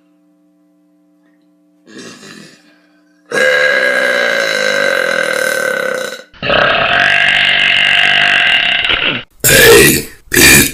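Girls burping loudly one after another: two long, drawn-out burps of about three seconds each, then two short loud burps near the end.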